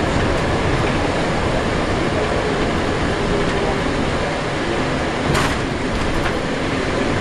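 Passenger cabin noise of a Scania Alexander Dennis Enviro 300 bus on the move: steady diesel engine and road rumble with interior rattles. A short hiss comes about five seconds in.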